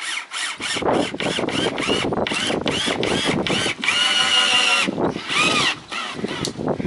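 Power drill driving a screw into a wooden 2x4: the motor whirs in short pulses that rise and fall in pitch, then runs steadily for about a second, then gives one more short burst near the end.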